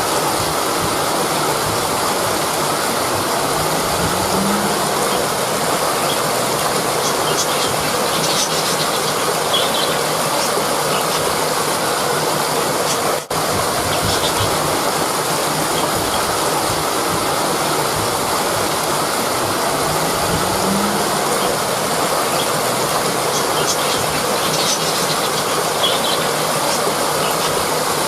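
Rushing river: a loud, steady rush of fast-flowing water, with a momentary drop in level about halfway through.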